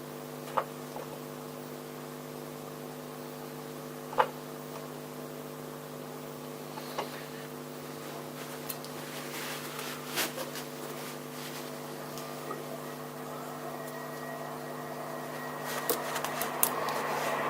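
Steady electrical hum with a few light clicks, and a whirring noise that builds near the end.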